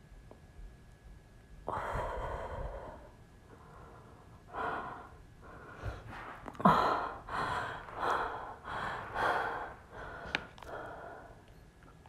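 A woman breathing hard from the effort of a plank hold: one long exhale about two seconds in, then a run of about eight short, heavy breaths, roughly one every second.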